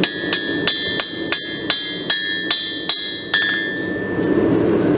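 Blacksmith's hand hammer striking a heated 5160 steel blade on a 200 lb anvil, about ten blows at roughly three a second, each with a ringing metallic tone, while drawing out the blade's bevel. The hammering stops a little past halfway through.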